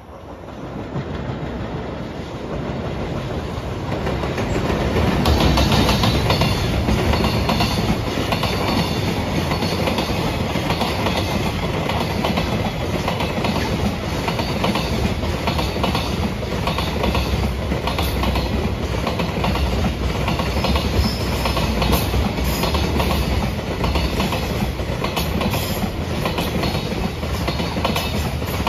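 Freight train passing close by, growing louder over the first few seconds as it arrives, then a steady loud rumble of rolling wagons with many sharp clicks from the wheels.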